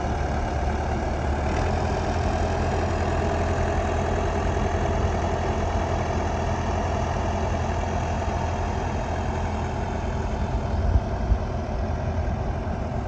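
Tractor engine running steadily at low revs, with two sharp knocks close together about eleven seconds in.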